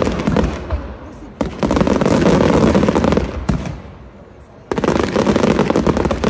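Aerial fireworks firing in rapid volleys of bangs and crackling, three dense volleys of a second or two each with short lulls between them.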